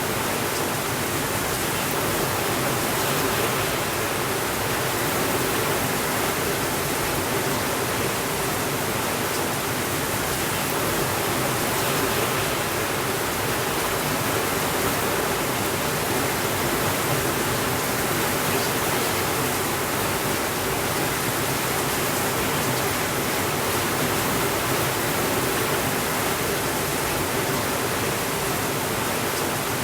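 Steady rainfall: an even, unbroken hiss with no thunder.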